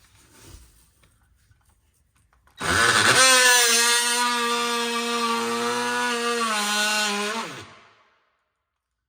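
Power saw running with a steady whine for about five seconds, then winding down in pitch as it is switched off.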